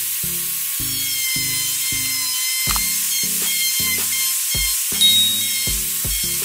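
Electric plunge router running at full speed, a steady high-pitched whine with a hiss above it.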